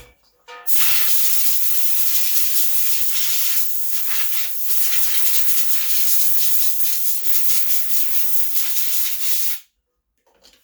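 Compressed air blowing from an air hose nozzle to clean off the snowblower: a loud steady hiss that starts about a second in, dips briefly a few times, and cuts off suddenly near the end.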